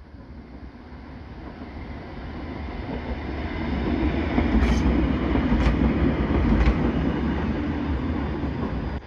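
Pesa Swing low-floor tram approaching and passing close by, its rumble growing louder and peaking as it goes past, with three sharp clicks about a second apart at the loudest point.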